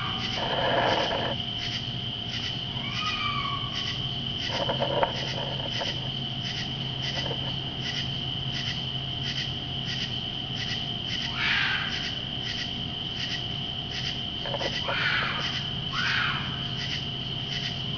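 Several short animal screams, some sliding in pitch, from an unidentified creature in the woods. They ring out over a steady night-insect chorus of crickets or katydids, pulsing about three times a second with a high drone.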